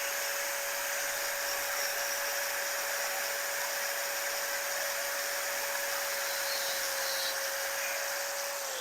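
Heat gun blowing steadily, a single fan whine over a hiss of hot air, as it shrinks heat-shrink tubing. Near the end it is switched off and the whine drops in pitch as the fan winds down.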